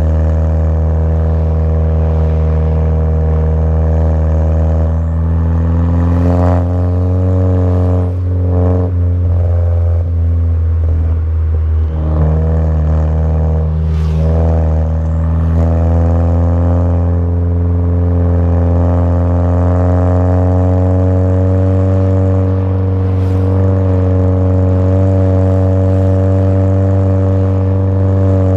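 Volkswagen Jetta GLI Mk6's turbocharged 2.0-litre four-cylinder running steadily through an aftermarket downpipe and cat-back exhaust: a deep, even engine tone that drifts only slightly in pitch, with a few brief knocks.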